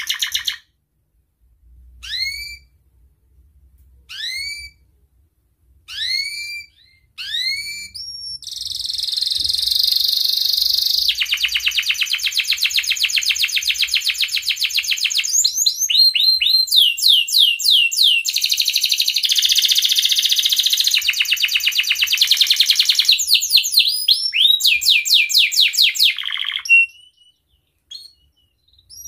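Male domestic canary in breeding condition singing. It starts with single rising chirps about every two seconds, then from about eight seconds in runs into a long song of fast trills and rolls. It breaks off shortly before the end.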